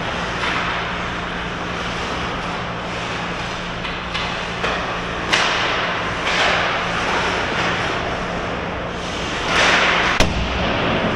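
Ice skates scraping and carving the rink ice in repeated hissing strokes, loudest about five, six and ten seconds in, with one sharp crack just after ten seconds, over a steady low hum.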